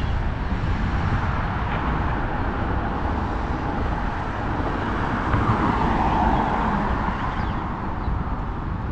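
City street traffic, with a vehicle passing by loudest about five to six seconds in.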